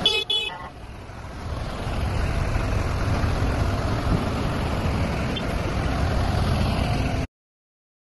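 Vehicle engines running in a road convoy, a steady low drone, with a short horn toot right at the start; the sound cuts off suddenly near the end.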